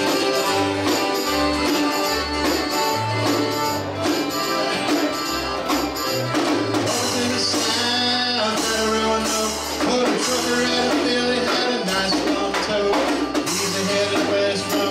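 Live folk band playing a bluegrass-style country song on accordions and acoustic guitar, over a bass line and steady drum beat, with a man singing lead into the microphone.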